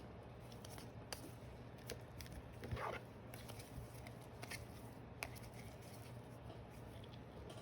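Faint handling of trading cards: scattered soft clicks and a brief card-on-card scrape about three seconds in, over a low steady room hum.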